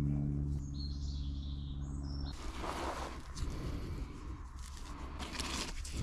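A steady low hum for the first two seconds, then close rustling and scraping as a black daisy-chain hammock strap is handled and wrapped around a birch trunk, the webbing rubbing on bark.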